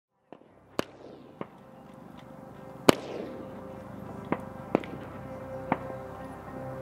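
Gunshots fired at irregular intervals, about seven in all, the loudest about three seconds in with a ringing tail, over background music that comes in and grows louder.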